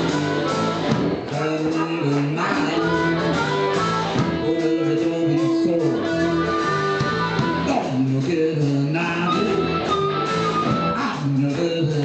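Blues-rock band playing a boogie, with electric guitar over a steady bass line; no words are made out.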